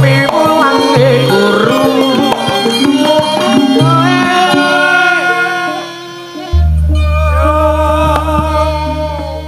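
A Javanese sinden (female singer) sings a wavering, ornamented vocal line with the gamelan, over strokes of the kendang drum. About six and a half seconds in, a deep gong is struck and rings on under her voice.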